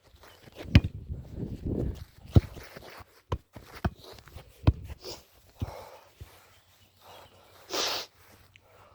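A football being kicked repeatedly: about half a dozen sharp thuds at uneven intervals over the first five seconds, with a short rushing noise near the end.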